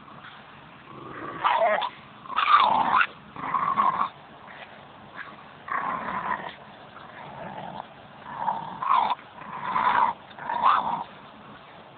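Staffordshire bull terrier giving a string of short growls, about seven in all, while tugging on a stick in a tug-of-war game: play growling.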